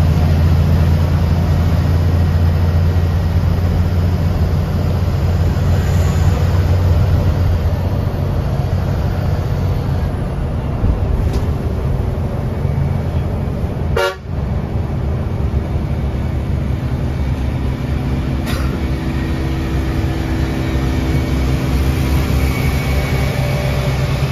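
Diesel engine of a BS6 coach bus running steadily under way, heard from the driver's cab as a low drone, with a vehicle horn honking.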